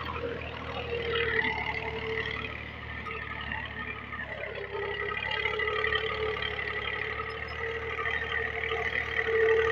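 Massey Ferguson 240 tractor's three-cylinder diesel engine running steadily under load while it pulls a ridger through the soil.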